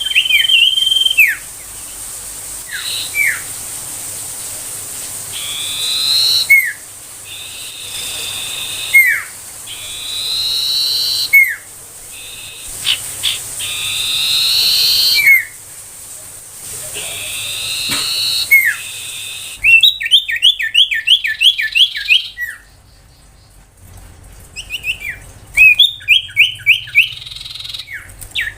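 Common iora (sirtu) whistling: short falling notes alternate with long drawn-out whistles. About twenty seconds in, the song switches to fast runs of short, sharp repeated chirps.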